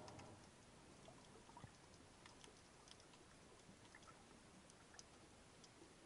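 Near silence under water: a faint hiss with sparse, irregular small clicks.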